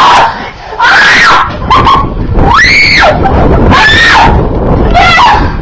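A child screaming loudly, about four short high-pitched screams in a row, each rising and then falling in pitch.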